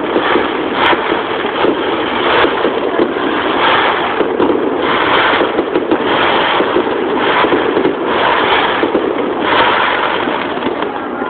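Aerial firework shells bursting in quick succession at close range: a dense, unbroken run of bangs and crackling, with a sharp crack about a second in.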